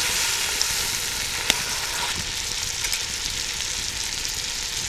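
Cajun-seasoned catfish fillets sizzling steadily in melted butter in a cast-iron Dutch oven, with one sharp tick about a second and a half in.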